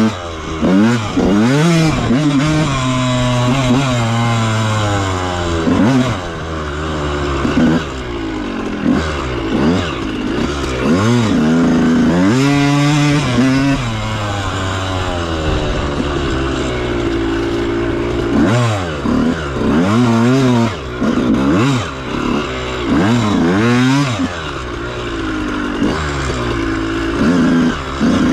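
Dirt bike engine under way, its pitch climbing and dropping over and over as the throttle is opened and closed, with brief dips where the rider comes off the gas.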